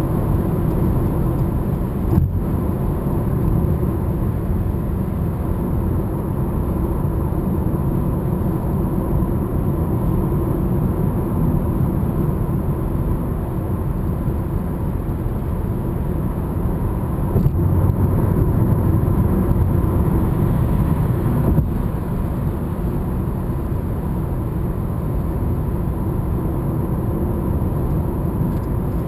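Steady road and engine noise inside a car's cabin while driving at highway speed, mostly a low rumble. A small knock about two seconds in, and the noise swells a little for a few seconds past the middle.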